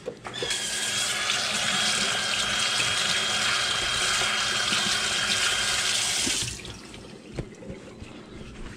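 Kitchen sink faucet running, with hands being rinsed under the stream, for about six seconds, then turned off suddenly. A few light knocks follow.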